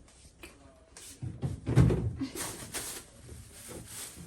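Things being taken out of a fridge by hand: a dull thump a little under two seconds in, with rustling and scraping around it.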